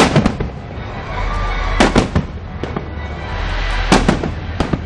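Aerial fireworks salute: shells bursting in clusters of sharp bangs about every two seconds, the loudest right at the start.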